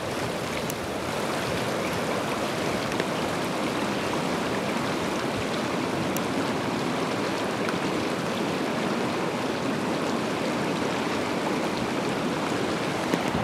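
Shallow mountain stream rushing over cobbles and gravel riffles: a steady, even rush of water.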